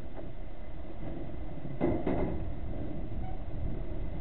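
Steady wind rumble on the microphone, with two dull thuds about two seconds in, a fraction of a second apart: the .22 FX Wildcat PCP air rifle firing and the pellet striking.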